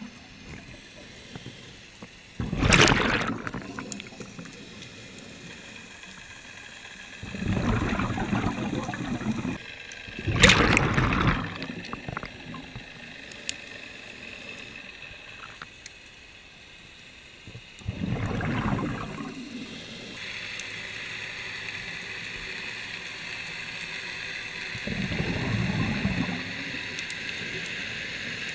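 Scuba diver breathing through a regulator underwater: a burst every few seconds, some short and sharp like the hiss of an inhale, others longer and lower like exhaled bubbles gurgling up.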